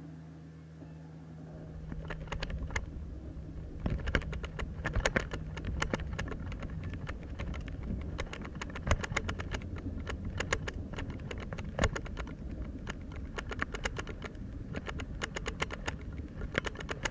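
A vehicle's engine idling with a steady low hum, then road noise building as the vehicle pulls away about two seconds in. Frequent sharp clicks and rattles run through the driving.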